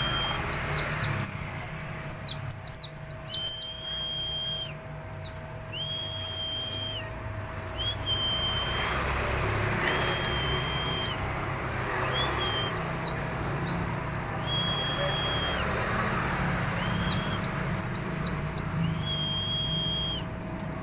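Pleci (white-eye) singing in the busy 'ngalas' style: bursts of rapid, quickly falling chirps, with a steady whistled note repeating about every two seconds underneath.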